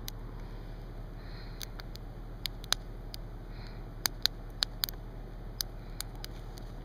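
Wood campfire crackling, with irregular sharp pops from the burning logs and a cluster of pops about four seconds in.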